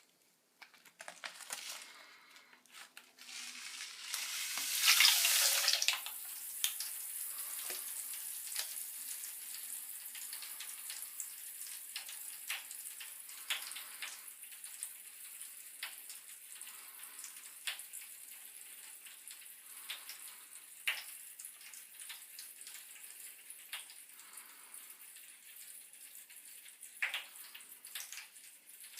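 Little Explorers Funky Fizz bath crackles fizzing and crackling in bath water. A loud rush comes about four seconds in, then a steady high hiss dotted with sharp pops that slowly fades.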